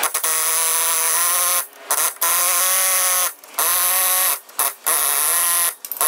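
Pneumatic air chisel hammering at the rivets that hold a ball joint to a lower control arm, to knock the rivet heads off. It makes a loud, pitched buzz in bursts of about a second, with short breaks between them.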